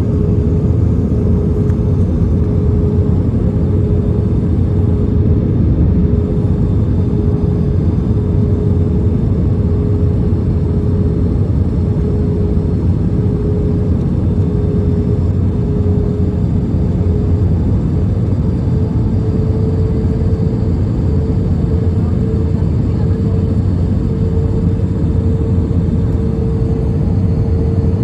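Airbus A320 cabin noise: a steady, loud engine and airflow rumble with a steady hum over it. The hum steps slightly higher about two-thirds of the way through.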